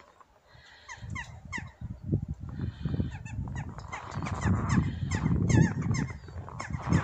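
Birds calling in short, hooked, repeated chirps from about a second in, over footsteps crunching in snow that grow louder in the second half.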